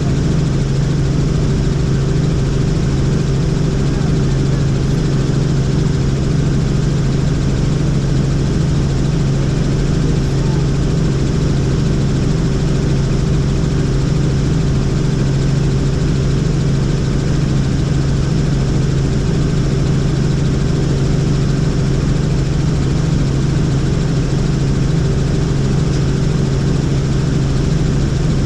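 Helicopter running steadily: a constant engine and rotor drone with an unchanging low hum.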